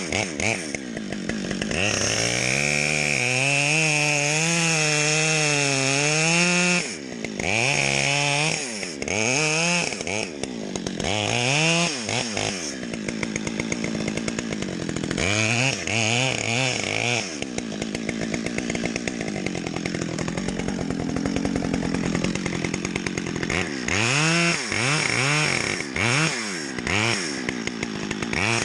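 Two-stroke chainsaw cutting into a tree. It is held at high revs for several seconds, with the pitch wavering under load, then revved up and down repeatedly between cuts, dropping back to a lower run in between.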